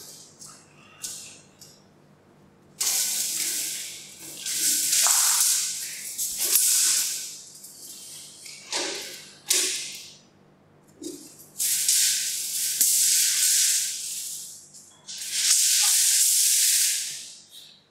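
Series of long hissing sounds, each a second or two, starting suddenly and fading out, the longest near the end.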